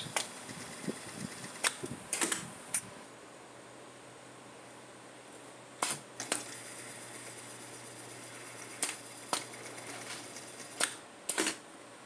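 Scattered sharp clicks and clacks of factory machinery, about ten in all and some in quick pairs, over the steady hum of a running fan.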